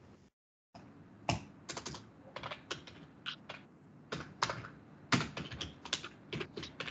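Typing on a computer keyboard: irregular, separate keystroke clicks, a few pauses between short runs.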